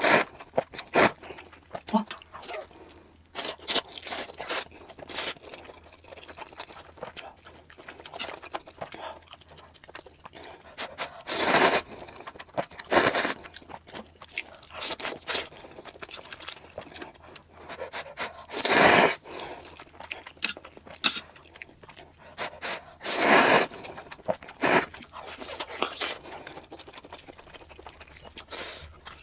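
Close-up eating sounds played back sped up: quick chewing and mouth smacks of spicy Buldak noodles, with several louder noisy slurps or breaths of about a second each.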